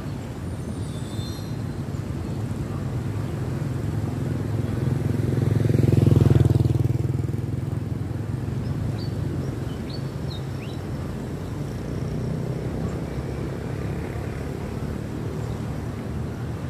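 A motorbike passing, swelling to a peak about six seconds in and then fading, over a steady low rumble of wind and moving water.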